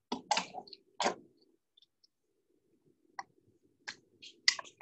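Irregular sharp metallic clicks and taps of a spanner working on a diesel fuel injection pump as it is bled of air, about half a dozen, the loudest two in the first second.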